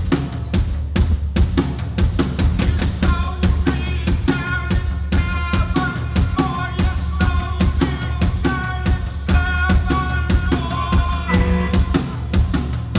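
A live band playing, driven by fast, even percussion. Sustained pitched notes come in about three seconds in and keep changing.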